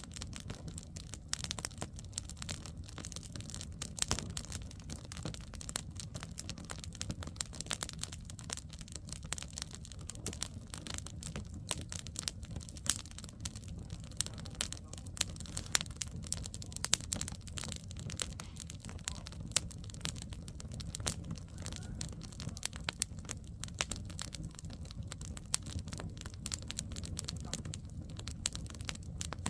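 Wood campfire burning, with many irregular sharp crackles and pops over a steady low rumble.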